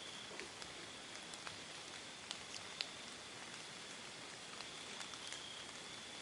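Faint woodland ambience: a steady high-pitched insect drone over a soft hiss, with scattered light ticks.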